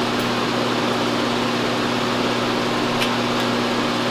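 Steady mechanical hum with a constant low tone, like a fan or a running motor, with a few faint ticks.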